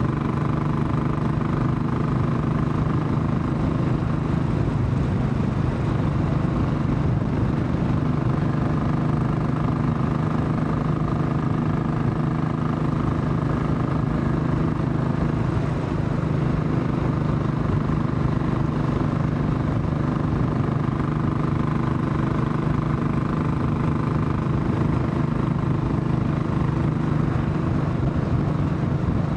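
Royal Enfield Classic 500's single-cylinder engine thumping steadily as the motorcycle cruises, its pitch holding fairly constant.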